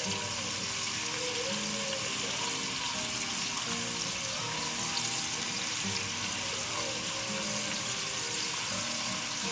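Black cod pieces frying in oil in a pan, a steady sizzle.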